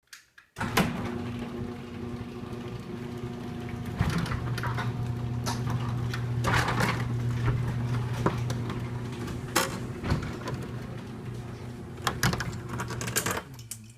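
A machine running with a steady hum, starting about half a second in and cutting off near the end, with many sharp clicks and knocks over it.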